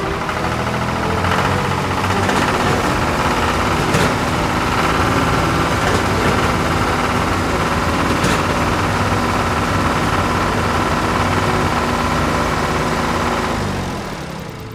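Tractor engine running steadily with a high whine over it, fading away near the end.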